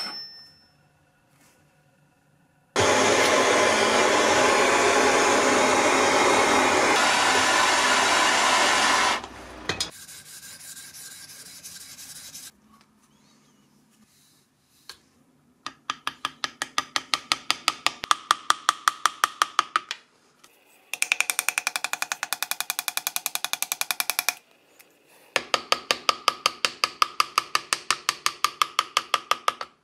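Knife-making noises: a power tool runs loudly and steadily for about six seconds. Later come two spells of fast, evenly spaced ticking as a graver chips lettering into the O1 steel knife blade.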